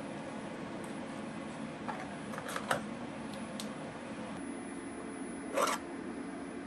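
A few light clicks and taps of hard plastic being handled, then a louder brief scrape and knock about five and a half seconds in as a diode laser module is lowered into its 3D-printed storage box. A steady low hum runs underneath.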